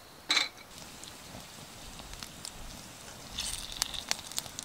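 Pork belly sizzling on a grill pan, with metal tongs clinking and tapping against the pan: one sharp ringing clink about a quarter second in, then a run of quick taps near the end.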